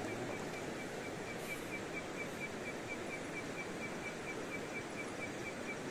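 Steady outdoor ambience, an even rushing hiss, with a faint high chirp repeating about four times a second.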